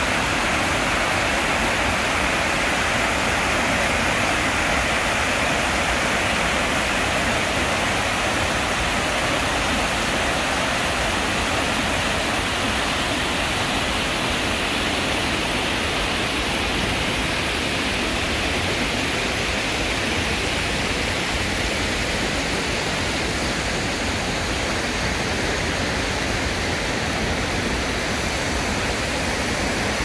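Water rushing over a low concrete weir on a shallow river: a steady, even rush of white water.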